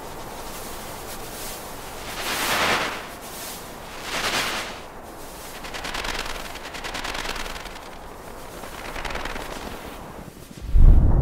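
Swelling rushes of hissing noise come and go four times over a steady noise bed, then a sudden loud, deep boom hits near the end.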